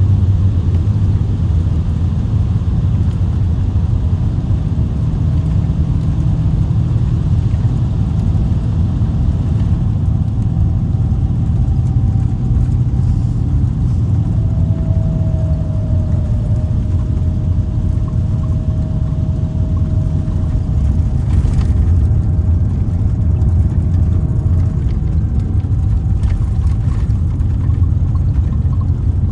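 Mercedes-Benz O-500R coach's diesel engine running with a steady low rumble. A faint whine sits over it through the middle stretch.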